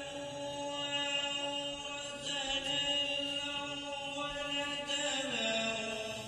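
Quran recitation (tilawat): a single reciter's voice chanting Arabic in a slow melodic style. It holds one long note for about five seconds, then steps down in pitch near the end.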